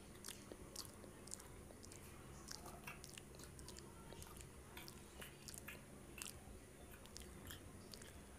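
Faint close-up chewing of a samosa: irregular wet mouth clicks and smacks, a few each second.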